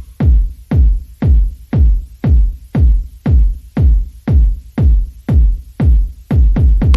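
Electronic dance music with a steady, heavy kick-drum beat, about two beats a second.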